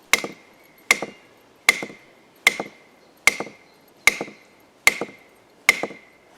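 The spine of a Cold Steel Recon 1 Tanto folding knife, blade locked open, whacked hard against a block of wood eight times, a little under a second apart. Each blow is a sharp thwack with a short metallic ring. This is a spine-whack test of the knife's lock, and the lock holds without closing.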